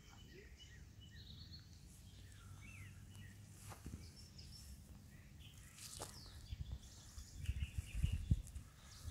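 Outdoor yard ambience: small birds chirping and twittering here and there, over a low rumble that grows louder near the end.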